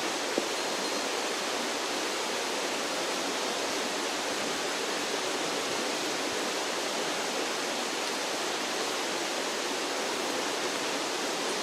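Mountain stream water rushing steadily, with one short click about half a second in.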